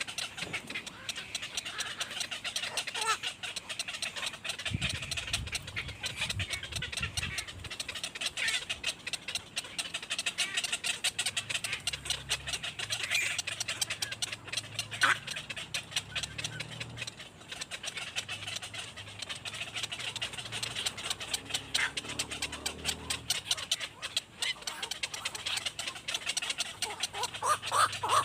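Birds calling continuously, a dense run of quick high chirps with no break.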